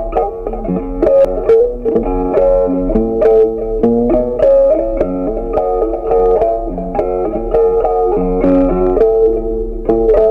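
Background music: a melody on a plucked string instrument, note after note at an even pace.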